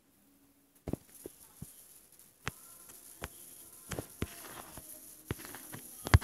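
Fingertips tapping and handling a phone, picked up by its own microphone: about a dozen irregular sharp clicks over faint hiss, the loudest near the end.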